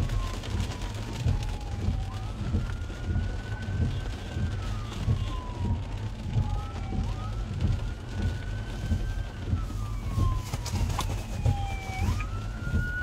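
Police car siren wailing, its pitch rising quickly, holding, then sliding slowly down, a full cycle about every five seconds. It sounds over a steady low rumble inside the car, with a few sharp clicks about eleven seconds in.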